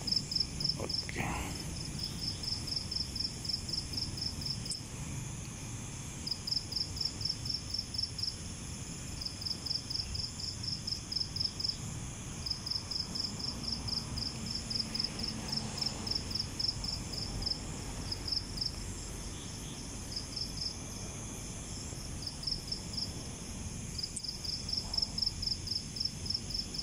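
Crickets chirping in a fast even pulse, about five or six chirps a second, in runs of one to two seconds with short breaks between them, repeating throughout.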